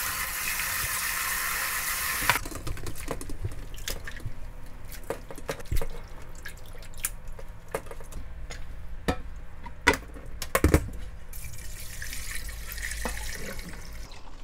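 Water sloshing in a stainless steel bowl in a kitchen sink as gamtae seaweed is washed with coarse salt to draw out its mud: a steady rush of water for about two seconds, then drips, splashes and sharp metal clinks of the bowl and a mesh strainer as the seaweed is lifted out to drain, with water pouring again near the end.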